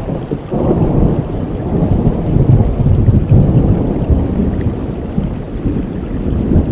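Rolling thunder rumbling over steady rain, building for the first few seconds and then slowly easing off.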